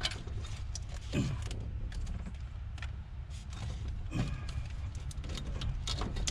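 Scattered light clicks and knocks of hands working a sensor connector and shifting the loosened upper intake manifold of a Ford 460 V8, over a steady low rumble. Two brief falling sounds come about a second in and about four seconds in.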